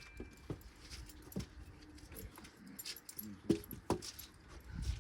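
Faint, scattered clicks and metallic clinks of tools and hardware being handled, with a few sharper knocks about three and a half and four seconds in.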